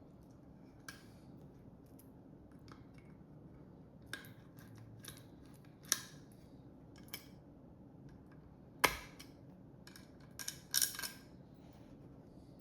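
Irregular small clicks and taps of hand tools against the metal parts and screws of a sewing-machine speed controller being taken apart, with a sharper snap about nine seconds in and a quick run of clicks near the end.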